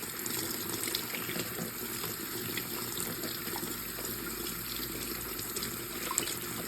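Kitchen tap running steadily into the sink, with a few light clicks.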